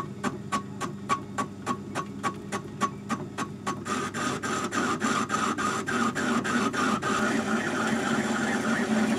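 Myford ML7 lathe turning the off-centre boss of a steam-engine eccentric. The cutting tool ticks against the high side once each turn, about three to four times a second, in an interrupted cut that is bringing the boss concentric with the axle bore. About 4 s in, the cut thickens into a louder, steadier hiss under the ticks.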